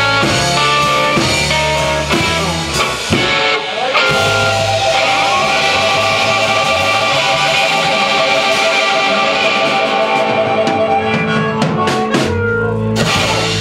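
Live electric blues band of electric guitar, bass guitar, drums and harmonica playing the closing of a slow blues. After a few seconds of moving riffs, a long chord is held with cymbals washing, and a full-band hit comes near the end.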